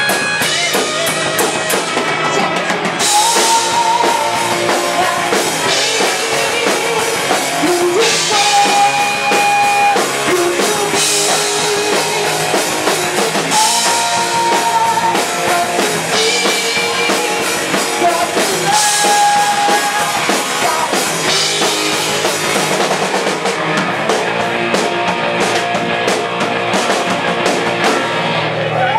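Live rock band playing a fast punk rock song on drum kit and electric guitar, loud and steady, with cymbal crashes and a repeating guitar line.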